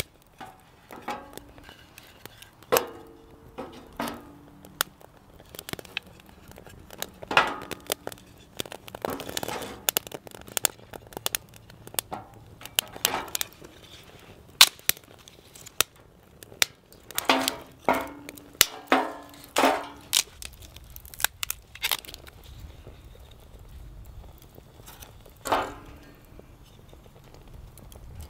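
Kindling fire crackling with sharp pops in a stainless-steel fire box, while thin wooden sticks are laid on and clack against each other and the metal in repeated short knocks.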